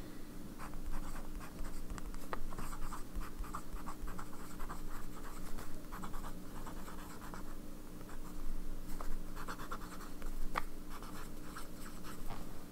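Sailor 1911 fountain pen with a zoom nib scratching across notebook paper as a line of words is written, the strokes coming in short bursts with small pauses between words. A faint steady low hum sits underneath.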